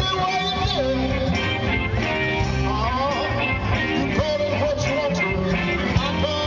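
Live amplified rock band playing: guitars, bass and drums together, with a lead line that bends and wavers in pitch over the beat.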